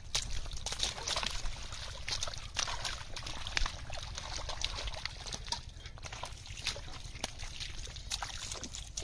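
Hands and bare feet squelching and splashing in shallow muddy water, with irregular small splashes and drips, over a steady low rumble.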